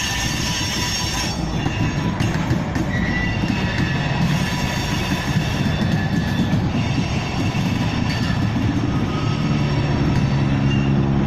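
Freight train of oil tank cars rolling past, a steady rumble of wheels on rail with clickety-clack over the joints and thin, high wheel squeals that come and go.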